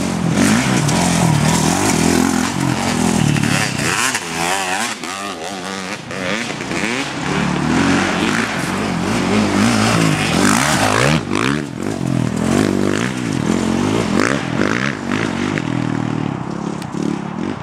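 Dirt bike engine revving hard and easing off again and again as the bike rides past on a dirt track, its pitch rising and falling with each change of throttle.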